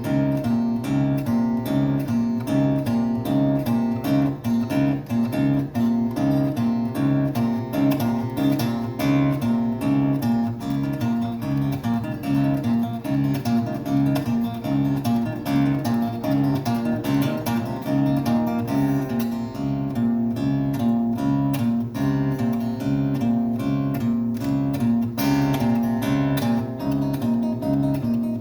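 Acoustic guitar played live, a steadily repeating picked figure of notes running without a break.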